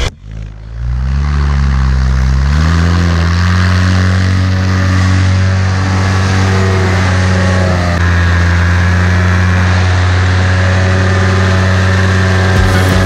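Paramotor engine and propeller throttling up, the pitch climbing over the first few seconds, then running steadily at high power for takeoff.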